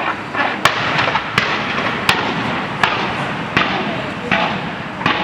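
Fireworks going off in a string of sharp bangs, one about every three-quarters of a second, over the chatter of a crowd.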